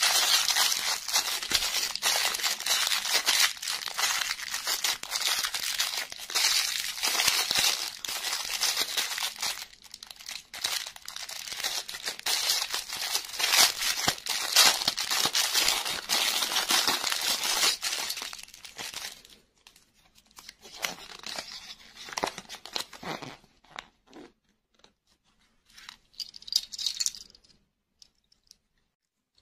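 Clear plastic cellophane bag crinkling and tearing as fingers work it open. The crinkling is dense and continuous for the first twenty seconds or so, then thins to scattered crinkles.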